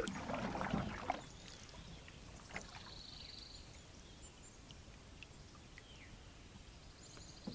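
Canoe paddle stroking through calm water, with a swirl of water in the first second, then quiet water with a few faint drips and knocks. A faint high trill comes twice in the background.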